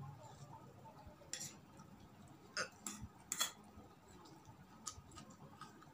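Cutlery clinking against a dish while eating, a handful of short, sharp clinks spread across a few seconds.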